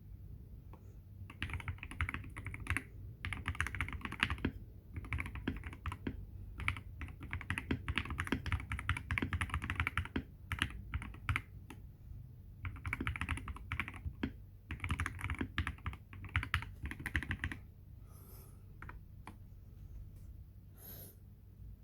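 Typing on a gasket-mount 75% mechanical keyboard with lubed Everglide Water King linear switches on a polycarbonate plate, under PBT XDA keycaps. Fast bursts of keystrokes come with short pauses between them, thinning to a few single key presses near the end.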